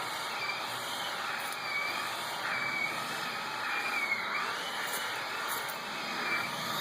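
Electric chainsaw cutting into a thick tree trunk. Its motor whines steadily, and the pitch dips and recovers over and over as the chain bogs under load in the wood.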